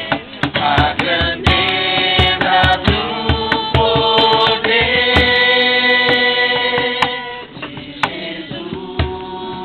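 Worship music: singing with instrumental accompaniment and a steady drum beat of about two strikes a second.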